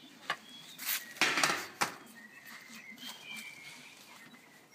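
A few sharp clicks and a short rustling burst of handling noise about a second in, with birds chirping faintly in the background.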